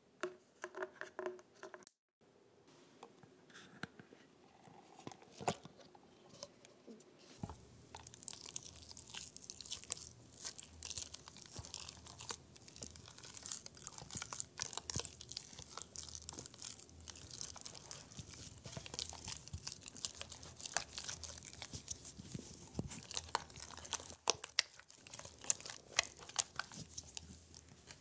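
A spatula stirring lumps of cottage cheese into thick custard in a saucepan, giving a dense, continuous run of small wet clicking and scraping sounds from about seven seconds in. Before that there are a few separate light handling sounds.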